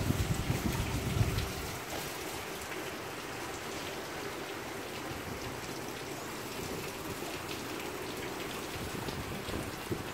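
Steady rain falling, an even hiss of drops. In the first second or so, wind buffets the microphone with low rumbling gusts.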